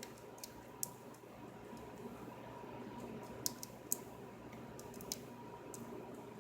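Sparse faint clicks of a lock pick and tension wrench working the pin stack of a small brass padlock fitted with security pins, a handful of sharp ticks a second or so apart. The picker is working to get the lock back into a false set.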